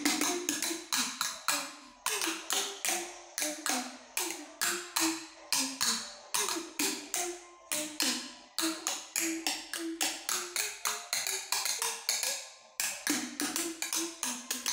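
Two sticks drumming a quick rhythm on large water jugs used as a drum kit: hollow thuds at a few different pitches, about four to five strikes a second, with a brief break about twelve and a half seconds in.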